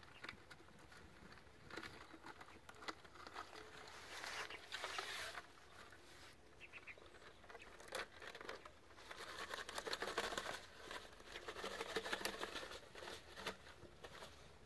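Wire-mesh funnel net being worked by hand into the end of a PVC pipe: crinkling, scraping and small irregular clicks, louder in spells about four seconds in and again from about nine seconds.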